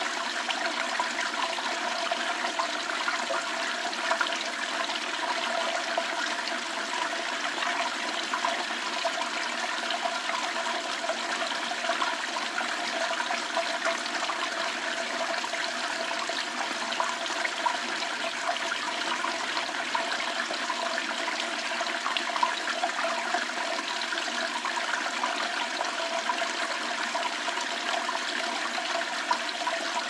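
Thin stream of water pouring steadily from a metal pipe spout and splashing into a shallow pool on stone paving, a constant, unbroken splashing rush.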